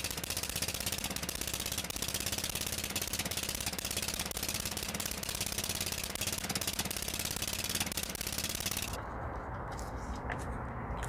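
Push mower's small single-cylinder OHV engine running steadily, a fast, even crackle of firing pulses over a low hum. About nine seconds in the crackle drops away abruptly, leaving a quieter low hum.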